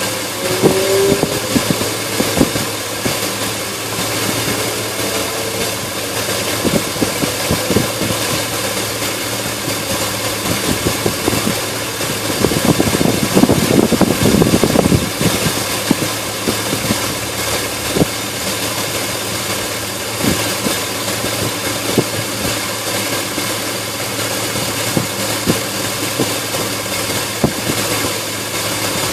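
Engine idling roughly, its running uneven with irregular knocks and misses. It gets louder and rougher for a few seconds about halfway through.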